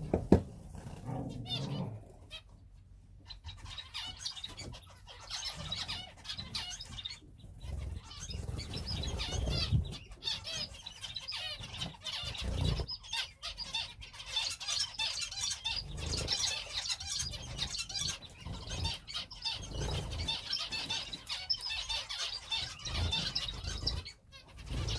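A flock of small cage birds (finches and canaries) chirping and calling busily in many short overlapping notes, with occasional low thuds and wing flutters.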